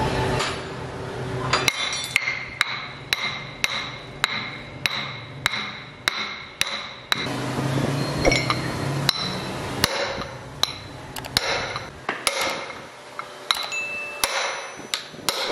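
Hand hammer striking a steel punch held against the front pulley hub of a Perkins tractor engine, metal on metal, about two blows a second, each with a short ring. A steadier low rumble fills a gap in the blows about seven seconds in.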